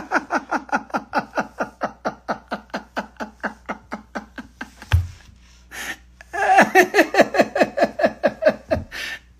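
A man laughing hard: a long run of quick 'ha-ha' pulses, about five a second, each dropping in pitch. After a short pause with a low bump, a second, louder burst of laughter follows.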